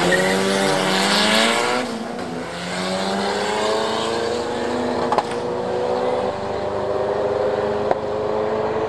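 Car engine and exhaust accelerating hard. The pitch climbs, drops at an upshift about two seconds in, then climbs steadily again through the rest, with a couple of brief clicks along the way.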